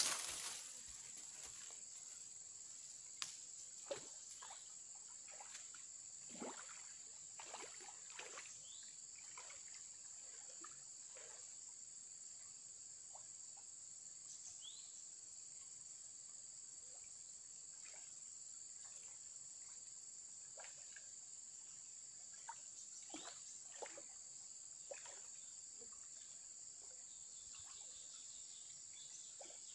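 Steady high-pitched chorus of insects in tropical undergrowth, with scattered faint ticks and a few short chirps over it.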